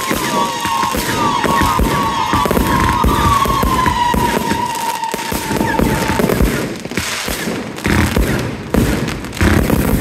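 Fireworks barrage: dense crackling and popping with repeated bangs, heavier in the last couple of seconds. A steady whistling tone runs over it, slowly falling in pitch and fading out about six seconds in.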